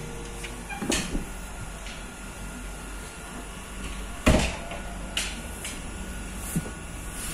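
Steady low hum inside a passenger train carriage, with a few sharp knocks and clunks, the loudest about four seconds in.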